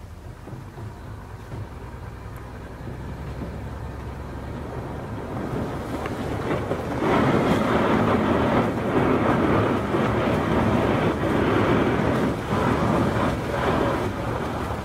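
Fish tug's engine running steadily while the boat breaks through harbour ice. From about six or seven seconds in, a loud grinding noise of ice breaking against the hull rises over the engine and keeps on.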